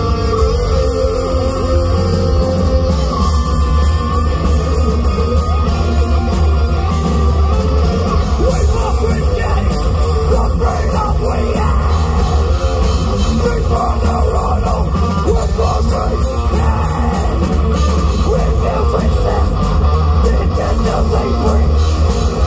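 Live band playing loud heavy rock through a PA: electric guitars, bass and drums, with vocals at times.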